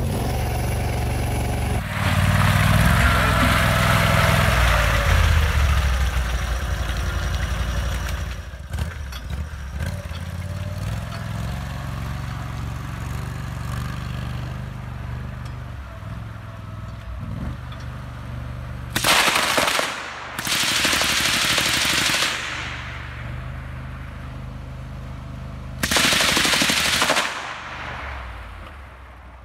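Argo 8x8 amphibious ATV's engine running, louder for a few seconds early on, then a vehicle-mounted belt-fed machine gun firing three bursts of automatic fire, each about a second long: two in quick succession about two-thirds of the way in, and one more near the end.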